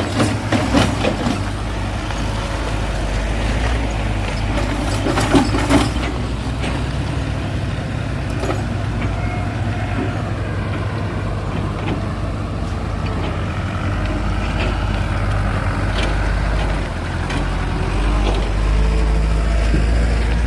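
Heavy diesel engine running steadily under load, with a few sharp metallic knocks in the first six seconds.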